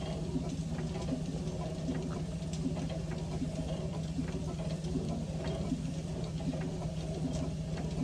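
McLaren steam traction engine running slowly out of gear, its piston and motion working: a soft, regular knocking and clicking from the valve gear and crank, over a steady low hum.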